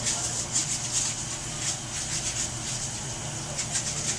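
Repeated short scraping strokes, several a second and uneven in rhythm.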